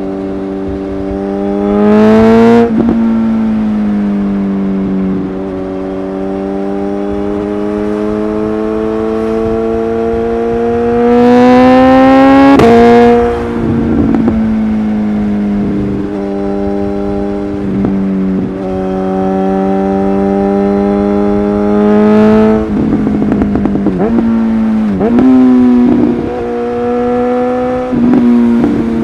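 Suzuki GSX-S1000's inline-four engine through a LeoVince aftermarket exhaust, running steadily and twice revving hard, about two seconds in and again from about eleven to thirteen seconds. Each run ends in a sudden drop in pitch at a quickshifter upshift. Later the throttle is snapped shut and reopened several times, with exhaust pops and crackles.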